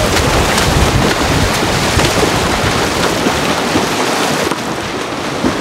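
Steady rushing splash of water churned by water polo players swimming and fighting for the ball in the pool, with small irregular splashes through it.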